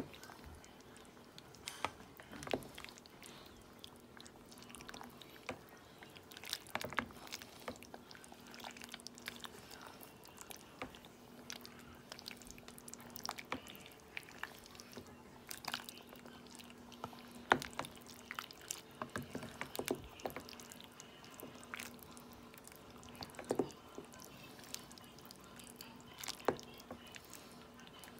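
Ladle stirring macaroni soup in a metal pot: irregular clinks and soft liquid sloshes, over a faint steady low hum.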